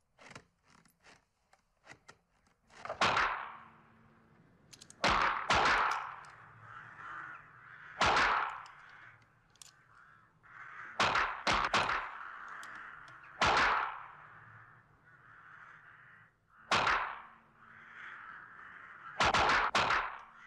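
Shots from TOZ-8 .22 small-bore rifles fired by several shooters lying prone, about a dozen in all, some alone and some in quick runs of two or three, each ringing out with an echo off the range's walls.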